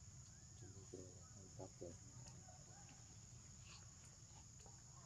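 Faint forest ambience: a steady high insect drone, with a few short, faint animal calls about one to two seconds in.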